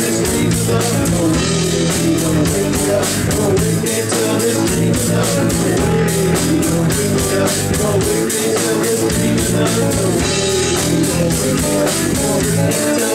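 Live rock band playing loud and without a break: electric guitars over a Sonor drum kit keeping a steady beat.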